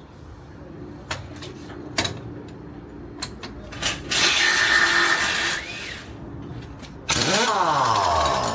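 Impact wrench running in two long bursts, each about a second and a half, on the last bolt holding an excavator's counterweight, a bolt that is usually hard to undo. A few sharp metal knocks come before the first burst.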